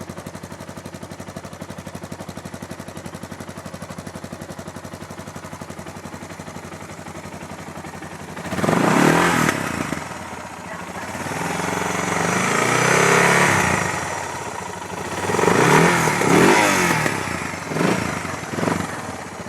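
Suzuki DR650's single-cylinder four-stroke engine through a Hayabusa exhaust can with an oversized header and aftermarket mid pipe: idling steadily, then revved several times about eight seconds in, including one longer held rev and two short blips near the end.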